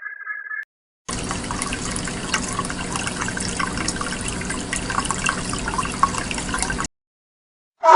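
Water running or splashing: a steady hiss dotted with many small clicks and splashes. It starts about a second in and cuts off abruptly near the end. A rapid chirping trill ends just after the start, and a loud animal call begins right at the close.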